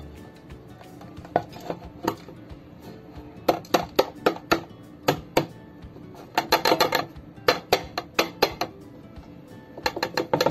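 Metal loaf pan knocking and clinking against a ceramic plate in repeated clusters of sharp taps as a baked cassava cake is turned out of the pan onto the plate.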